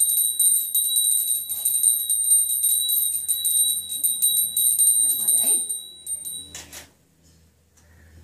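Small puja hand bell rung rapidly and continuously, a steady high ringing that stops about six and a half seconds in. A brief rustle follows.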